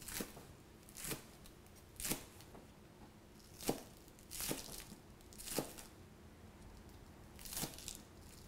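Chef's knife slicing green onions thinly on a cutting board: separate crisp cuts, each ending with a light knock of the blade on the board, about once a second and unevenly spaced.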